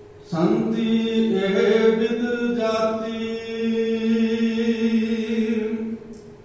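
A single voice chanting Gurbani in one long, drawn-out phrase that breaks off about six seconds in: the hukamnama being recited.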